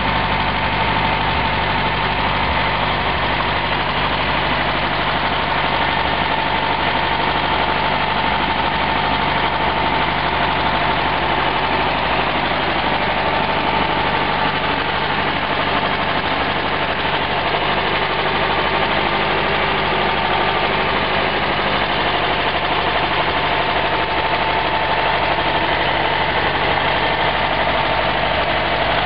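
1964 Volkswagen Karmann Ghia's air-cooled flat-four engine idling steadily, heard close up in the open engine bay.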